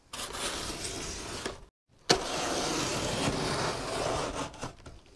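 Cardboard shipping box being opened: two stretches of steady rasping noise, the second starting sharply about two seconds in, broken by a brief dead gap.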